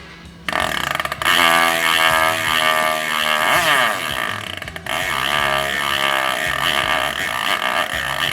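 Background music: a loud, buzzing, distorted lead with sliding pitch cuts in about half a second in, over a stepping bass line.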